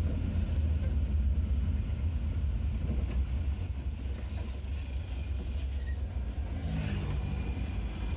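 Car engine and tyre noise while driving along, a steady low rumble.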